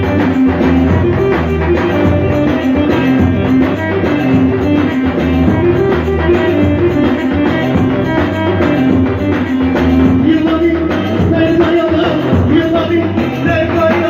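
Loud dance music with a steady drum beat, played on an electronic arranger keyboard.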